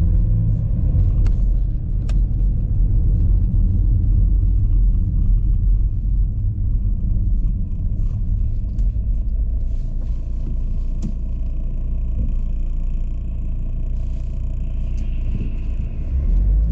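Steady low rumble inside a Volvo XC90's cabin with its engine running, with a few faint clicks.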